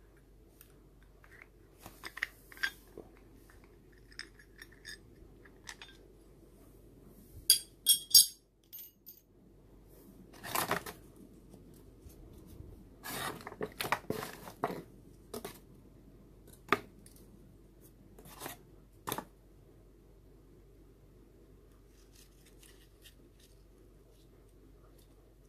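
Handling noise from a plastic Mollar belt sander head for an angle grinder and its cloth sanding belt: scattered clicks, knocks and rubbing. The loudest are two sharp clicks about eight seconds in.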